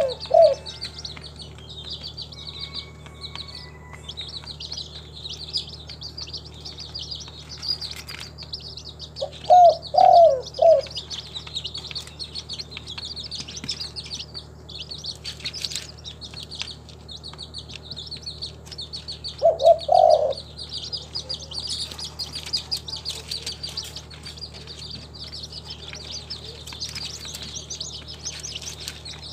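Spotted dove cooing in short phrases of a few low notes, three times about ten seconds apart, over constant high-pitched chirping of small birds.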